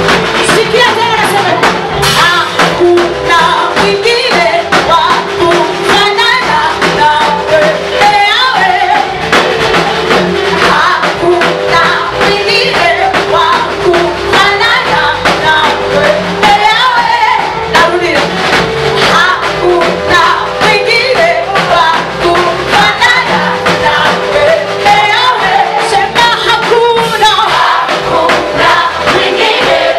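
Swahili gospel praise song: voices singing together over a band with a steady drum beat.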